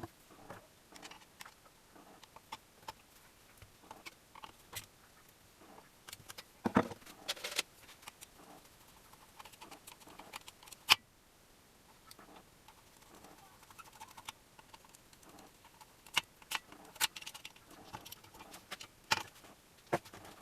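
Scattered clicks, taps and metallic clinks of hand tools and small metal parts being handled, irregular and unhurried, with a sharp single knock about halfway through.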